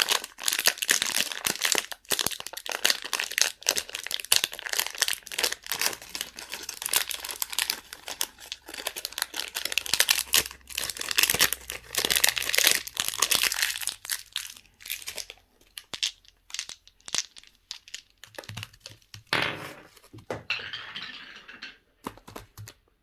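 Plastic wrapping crinkling and tearing as candy and toys are unwrapped: dense crackling for about fifteen seconds, then sparser, separate crinkles and clicks, stopping just before the end.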